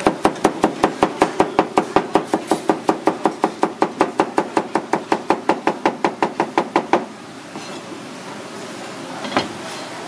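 Kitchen knife rapidly slicing a roll of green leaves on a plastic cutting board: an even run of quick chops, about six a second, that stops about seven seconds in. A single knock near the end.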